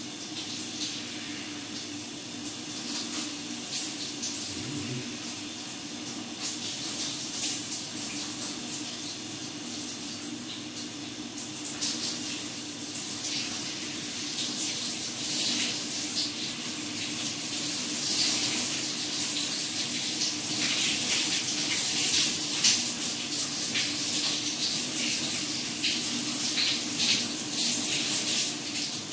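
Water running steadily from a tap, a hissing rush with fine crackle that grows fuller about halfway through, over a low steady hum.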